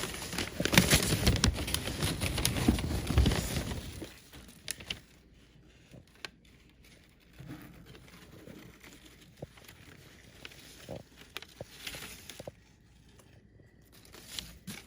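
Packaging being handled and unwrapped, crinkling and rustling steadily for about four seconds, then only scattered soft rustles and ticks.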